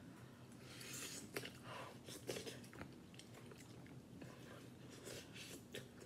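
A person slurping and chewing instant noodles off a fork, in noisy bursts with a few sharp clicks through the first three seconds and again about five seconds in.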